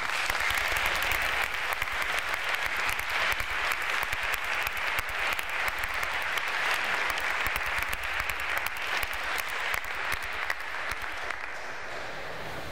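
Audience applauding, a dense patter of many hands clapping that thins out and dies down near the end.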